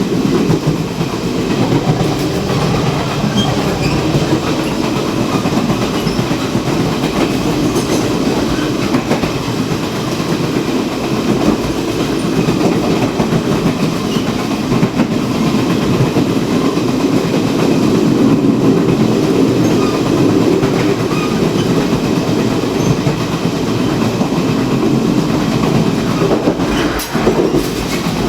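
Chu-Kuang Express passenger train running, heard at the gangway connection between a coach and the baggage car: a steady, loud rumble of wheels on rail with clickety-clack, and a brief sharp clack near the end.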